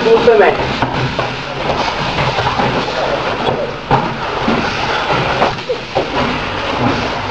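Noisy gym din during glove sparring: a steady rumble of indistinct voices and room noise, broken by a few sharp thuds of boxing gloves landing, the clearest about four seconds in.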